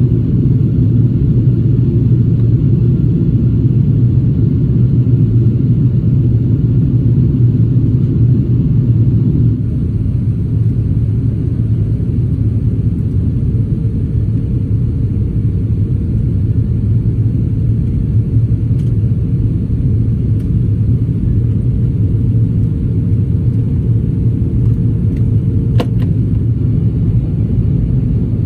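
Airliner cabin noise on an Airbus A330-300 descending on approach: a loud, steady low rumble of airflow and engines. The level dips slightly about ten seconds in. A faint steady hum runs through the middle and stops with a click near the end.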